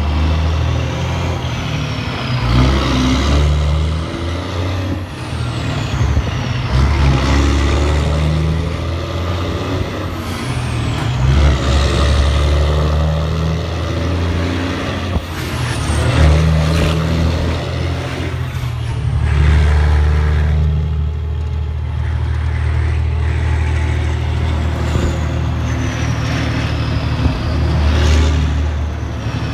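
1996 Mack CH's Mack E7 inline-six diesel running loud through straight pipes with no muffler as the truck drives, its note repeatedly rising and dropping back, with a faint high whistle gliding up and down over it.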